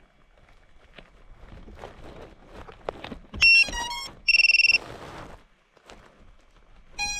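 FPV drone powering up: handling rustle and knocks, then a quick run of electronic beeps at changing pitches and one longer steady beep. Another run of beeps starts near the end.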